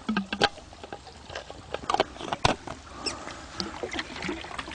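Light, irregular clicks and taps of small plastic parts being handled, as the MIOX purifier is put down and the water bottle is capped after dosing.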